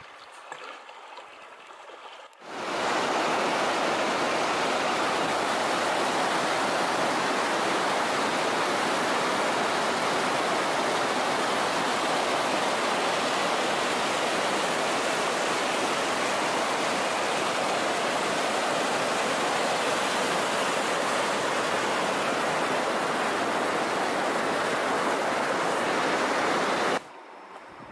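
Whitewater rushing over rocks in a river rapid, a loud, steady rush that comes in suddenly about two and a half seconds in, after a quieter start, and cuts off just before the end.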